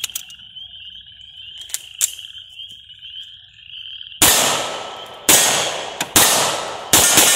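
A Polymer80 PF940V2 9mm pistol firing about five shots of 150-grain Federal synthetic-coated ammunition in quick succession over the last three seconds, each shot sharp with a ringing tail. The pistol runs smoothly. Before the shooting, a few clicks of the pistol being handled sound over a steady chorus of frogs.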